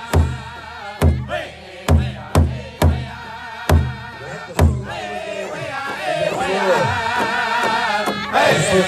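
Powwow drum group: men singing a chant around a large shared powwow drum, striking it with padded drumsticks in seven strong, unevenly spaced beats. The drumbeats stop a little before halfway through while the singing carries on, growing louder near the end.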